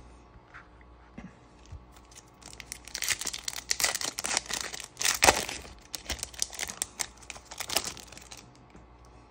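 Foil trading card pack being torn open by hand, crinkling and crackling from about two and a half seconds in, with the loudest rip about five seconds in.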